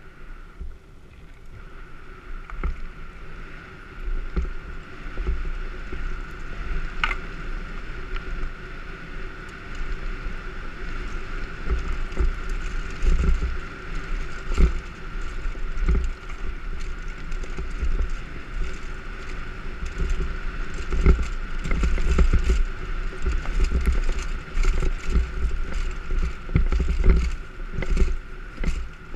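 Specialized Demo 8 downhill mountain bike descending a bumpy dirt trail: wind rumble on the camera mic and tyre noise, with frequent knocks and rattles from the bike over bumps, growing louder as speed builds. A steady high hum runs underneath.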